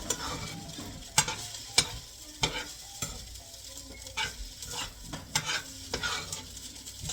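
Fried rice sizzling in a pan as it is stirred, with repeated sharp clicks and scrapes of the utensil against the pan.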